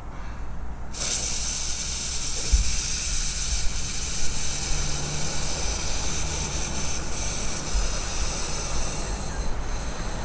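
Steam hissing out of a steam engine, starting suddenly about a second in and holding steady, with a low rumble underneath.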